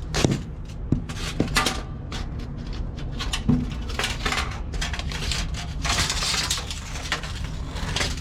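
Scattered knocks, clicks and clatter of things being handled, with a longer scraping or rustling stretch about six seconds in, over a steady low hum.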